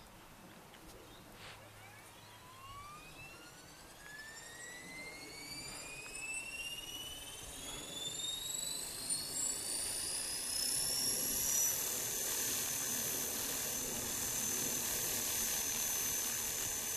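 Electric motor and rotor of a 500-size RC helicopter spooling up: a whine climbs steadily in pitch and grows louder for about ten seconds, then levels off at a steady pitch as the rotor reaches head speed.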